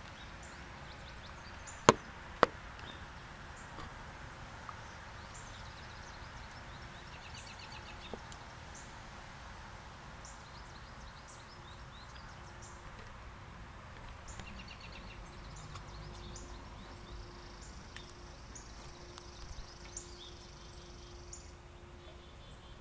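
Two sharp cracks about half a second apart near the start. Then many short bird chirps over a faint steady hum.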